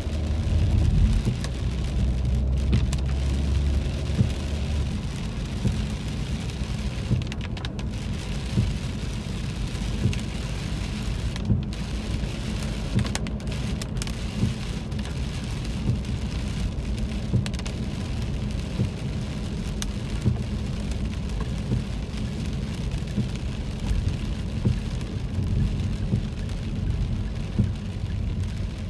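Rain falling on a car's roof and windshield, heard from inside the cabin, over the low rumble of the car driving on a wet road. The rumble is louder in the first few seconds.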